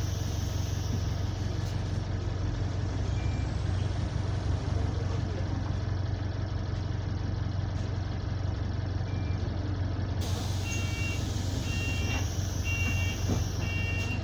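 Bus engine heard from inside the saloon, running with a steady low drone; the title calls the engine nice but the turbo burst. From about ten seconds in, a series of short paired electronic beeps repeats four times.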